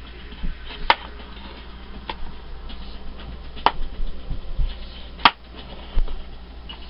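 Kitchen knife slicing red potatoes on a plastic cutting board: four sharp taps of the blade on the board, about one every second or so, with a few duller knocks in between.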